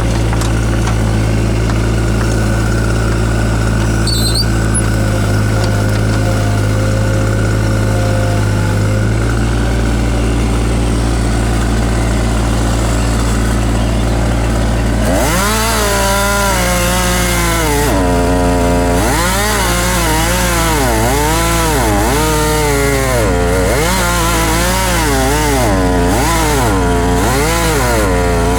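Takeuchi TB016 mini excavator running steadily. From about halfway a whine rises and falls over and over as the machine works.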